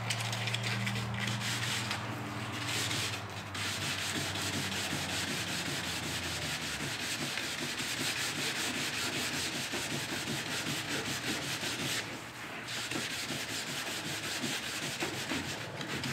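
Rapid back-and-forth scratchy rubbing of a small abrasive pad on a painted steel truck fender, wearing through the top coat to bring the darker layer beneath through. It breaks off briefly about 2, 3 and 12 seconds in. A steady low hum sits under the first six seconds or so.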